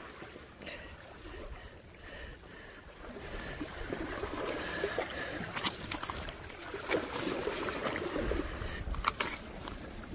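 Sea water lapping and washing against shore rocks, with scattered sharp clicks and rustles from hands handling and unhooking a caught wrasse.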